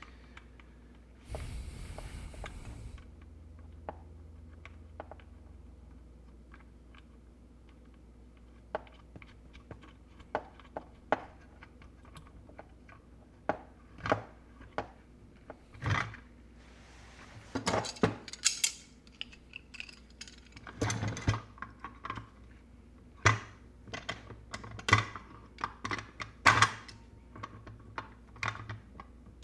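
Small hard plastic and metal parts being handled and fitted together on a workbench: scattered clicks, taps and knocks that get busier after about halfway, with a short rustling hiss near the start.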